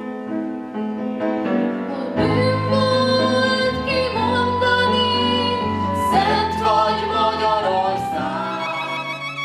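A young woman singing a slow melody into a microphone over instrumental accompaniment, with some notes held and wavering in vibrato.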